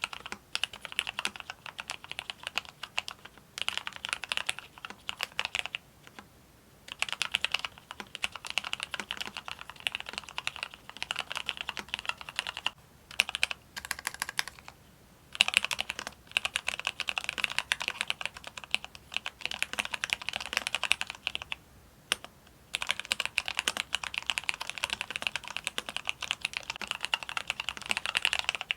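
Mechanical keyboard with Cherry MX Black linear switches being typed on quickly, a dense clatter of keystrokes in runs of a few seconds broken by short pauses.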